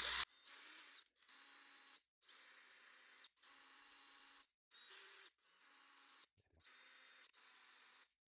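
Faint, intermittent sounds of a hand tap being turned to cut threads in a screw hole, in short strokes about once a second, after a brief louder sound at the start.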